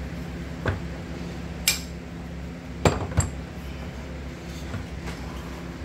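Metal brake caliper parts being handled on a steel workbench, clinking and knocking: four sharp metal knocks, the two loudest close together about three seconds in, over a steady low hum.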